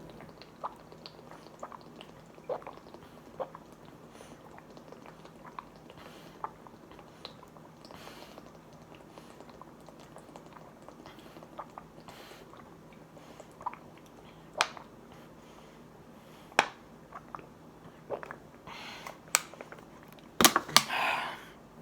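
Someone drinking bottled water: small mouth clicks and swallowing sounds scattered through, with a few louder sharp knocks and a short burst of noise near the end.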